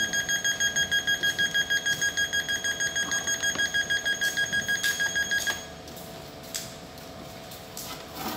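Electrosurgical unit sounding a rapid beeping alarm, a high tone pulsing about six times a second, which cuts off about five and a half seconds in, leaving a few faint clicks.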